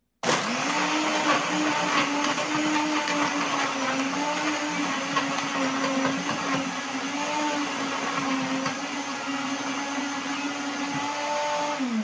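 Countertop blender running at high speed, crushing ice with milk and cookies into a frappé. It starts abruptly, its motor whine wavering slightly as the load shifts, then switches off near the end and winds down with a falling pitch.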